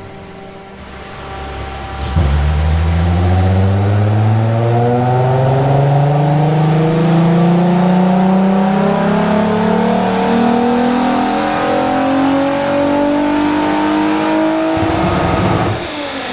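Volkswagen 3.2 VR6 engine making a full-throttle dyno pull. About two seconds in it goes to full throttle and its pitch rises steadily through the rev range for some thirteen seconds. Near the end the throttle closes and the revs fall away.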